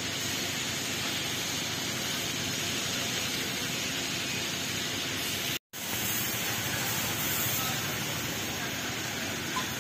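Steady hiss of outdoor background noise, cutting out completely for an instant a little over halfway through.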